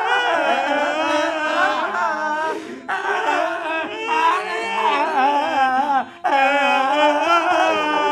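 Several voices singing in long, wavering, drawn-out phrases, breaking off briefly twice.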